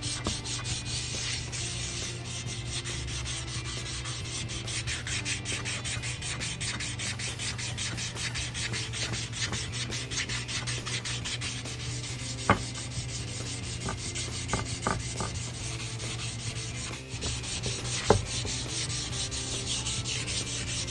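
Sandpaper rubbed by hand in quick back-and-forth strokes over the wet, paint-covered metal body of an old KitchenAid stand mixer, a steady scratchy rasp. A few sharp taps stand out, once about halfway through and again near the end.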